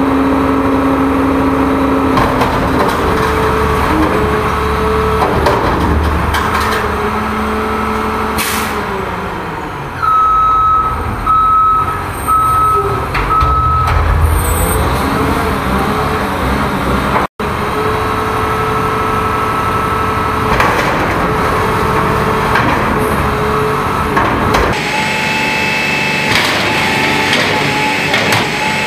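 Front-loader garbage truck running and working its hydraulic arms to pick up a dumpster. A short run of reversing beeps comes about ten seconds in. Near the end, a higher steady whine sets in as the forks lift the dumpster over the cab.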